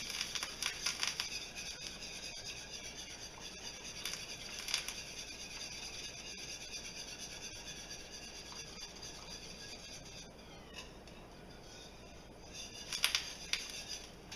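Wire whisk beating a lemon sauce in a skillet as xanthan gum is sprinkled in to thicken it, its wires scraping and clicking against the pan in rapid strokes. It eases off for a couple of seconds past the middle, then picks up again near the end.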